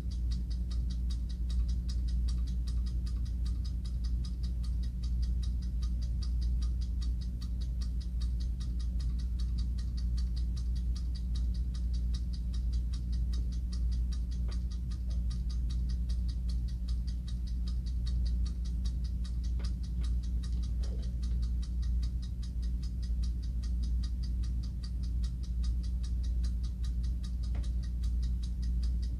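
Hand-wound mechanical movement of a German porcelain-cased clock ticking steadily and fast, over a steady low hum.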